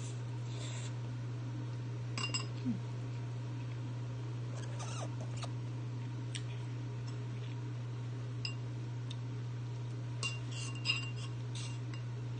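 Noodles slurped briefly at the start, then scattered light clinks of metal chopsticks against a ceramic bowl, a few of them ringing, with a cluster of clinks near the end. A steady low hum runs underneath.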